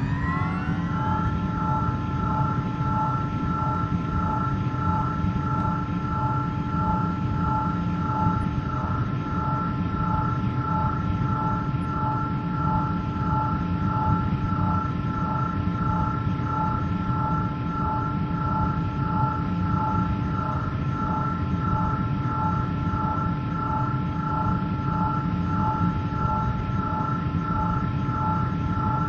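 Hovering flying-craft engine sound effect, holding steady after spooling up: a dense low rumble under a humming drone of several steady tones, pulsing gently and regularly.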